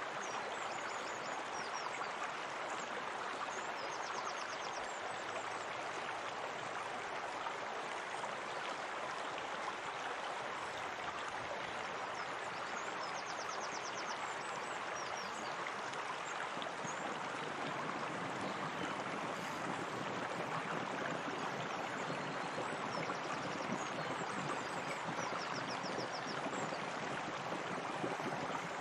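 Steady flowing water, like a stream running into a pool, with a few faint high chirping trills now and then.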